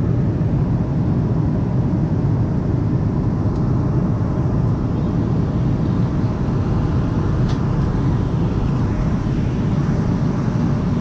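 Airliner cabin noise in cruise flight: a steady, low rush of the engines and the air streaming past the fuselage.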